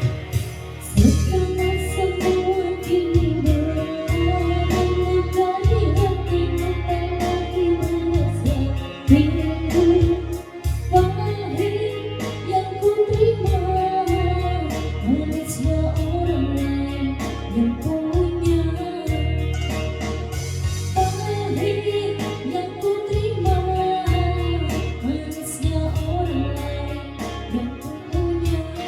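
Woman singing a song over backing music with guitar and a bass line.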